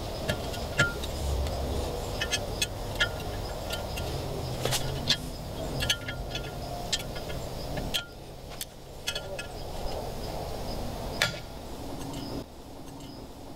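Groove-joint pliers clicking against a cotter pin and castle nut in the hub of a stainless steel propeller as the pin is set: more than a dozen sharp metallic clinks, irregularly spaced, each ringing briefly.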